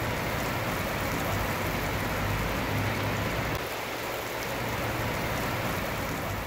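Heavy rain pouring steadily onto wet pavement.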